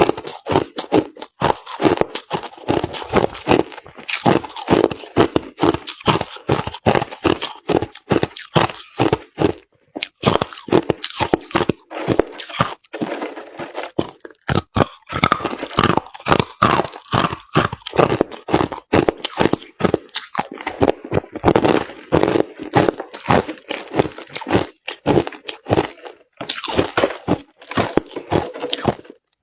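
Crushed ice being chewed close to the microphone: a rapid, irregular run of loud crunches, several a second, with a few brief pauses between mouthfuls.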